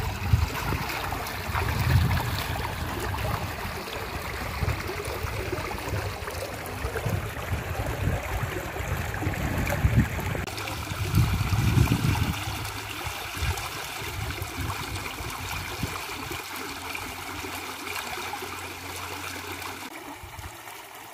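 Water trickling and splashing as a fine-mesh fishing net is lifted and worked in shallow muddy water, with an uneven low rumble underneath.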